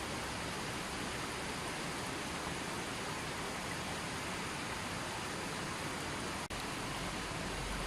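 Running water flowing steadily in an even, unbroken rush, with a momentary dropout about six and a half seconds in.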